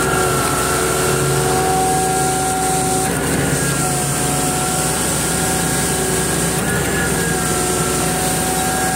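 Concrete pump truck's diesel engine running steadily, with a steady whine over its rumble.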